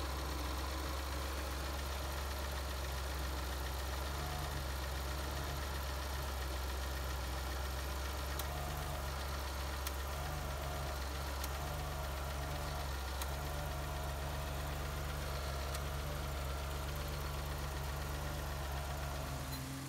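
Citroen XM engine idling steadily while its hydraulic system bleeds after accumulator sphere replacement, with a wavering whine coming and going.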